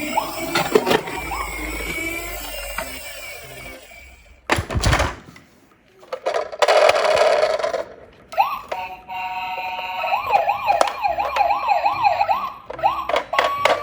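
Several electronic toy police-car and ambulance sirens sounding over one another, one warbling up and down about twice a second in the second half. A loud knock about four seconds in, followed by a short noisy stretch.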